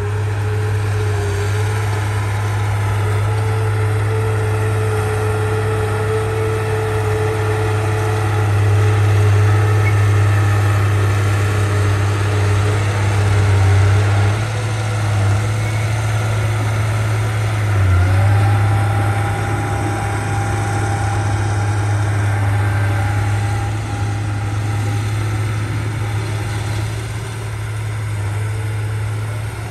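Heavy earth-moving machine's diesel engine running steadily with a deep hum, and a whine that rises in pitch about eighteen seconds in.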